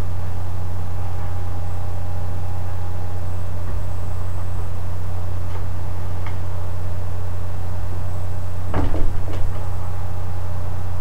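Interior doors being slid and pulled shut, with a few faint clicks and then a louder knock and scrape near the end as they meet, over a steady low hum.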